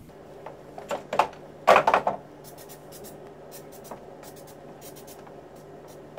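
A couple of knocks and a loud clatter in the first two seconds, then a string of short hisses from an aerosol can of silicone lubricant spray puffed onto the cart's plastic posts.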